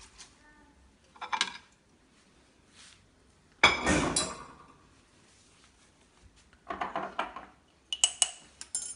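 Stainless-steel pressure-cooker pot being handled: a few scattered metal knocks, one loud clank about four seconds in that rings on for about a second, then a run of lighter metallic clinks near the end.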